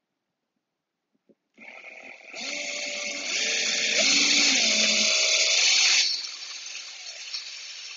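Cordless drill driving a self-drilling toggle anchor into drywall, its threads cutting into the board. The drill starts about a second and a half in, runs hardest from about two to six seconds in with its pitch wavering, then runs more lightly until near the end.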